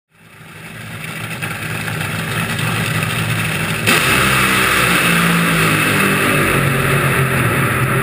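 Top Fuel dragster engine idling, heard close up from the car. The sound fades in, then turns suddenly louder and brighter about four seconds in and stays that way.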